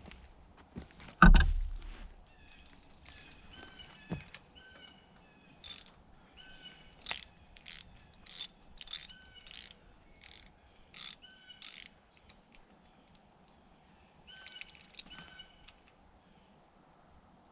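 A heavy thump about a second in, then a run of about ten sharp clicks, roughly two a second, from a hand wrench turning in short strokes to back a snapped-off grease fitting (zerk) out of the Bobcat 325 mini excavator's bucket joint.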